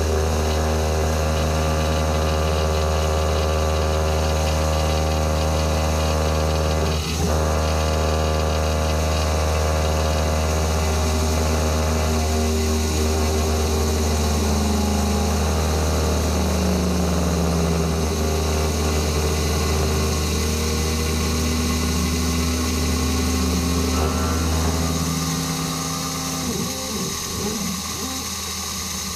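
CNC-converted mini mill cutting a contour in quarter-inch steel plate under flood coolant: a steady motor hum, with the whine of the table's feed drives gliding up and down in pitch as the table moves. A single sharp knock comes about seven seconds in, and the sound eases off a little near the end.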